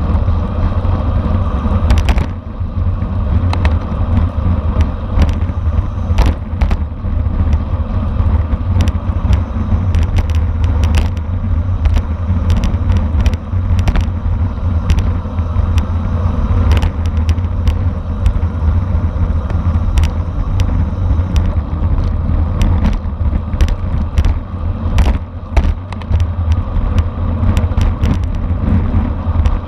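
Wind rushing over the microphone of a racing bicycle at speed, a loud steady low rumble, with frequent sharp clicks and rattles from the bike and road.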